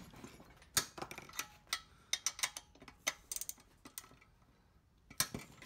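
Hand ratchet wrench clicking in short irregular runs as it is swung back and forth, loosening a tight cylinder head bolt on a small engine. The clicks come from about a second in to about four seconds, with a couple more near the end.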